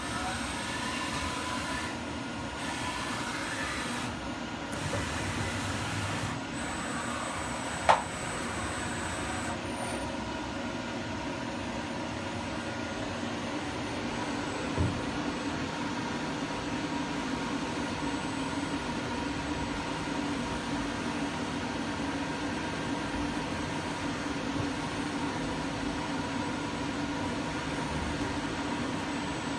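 Cylinder boring machine running steadily as it machines a Ford Kent 109E engine block's bores out from 81 mm to 83 mm, a constant mechanical hum with a few held tones. A sharp click comes about eight seconds in and a softer knock about fifteen seconds in.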